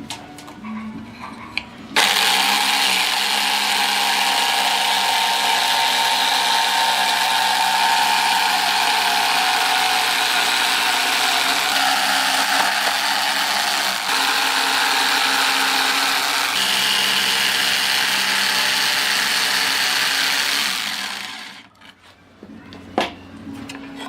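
An electric power tool motor runs at full speed for about nineteen seconds, a steady whine over a dense grinding noise. It starts abruptly about two seconds in and winds down near the end.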